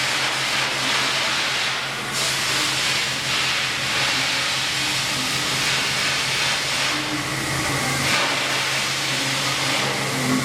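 Milling machine cutting a steel stamping die: a steady hiss of machining over a low, even hum of the machine. The hiss shifts in tone a few times.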